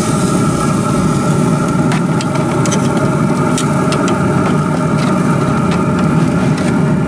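Pit Boss Lexington pellet grill running, its combustion fan making a steady mechanical hum, with a few light clicks scattered through.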